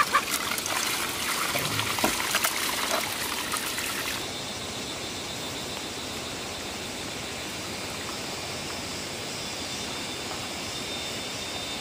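Water trickling and splashing, with many small sharp splashes for about the first four seconds, then a softer, steady flow.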